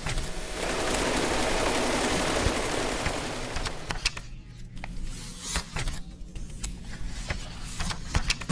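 New Taiwan dollar cash being handled: a dense, grainy stretch of noise lasting about three seconds, then scattered sharp clicks and taps.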